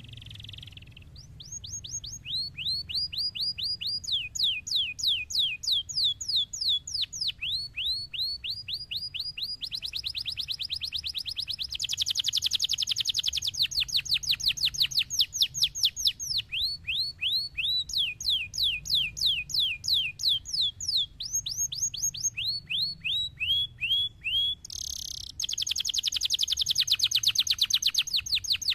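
Domestic canary singing a long, continuous song made of rapid trills. Each phrase is a fast run of the same down-slurred note, and the song switches to a new phrase every second or two, with some very quick rolling runs.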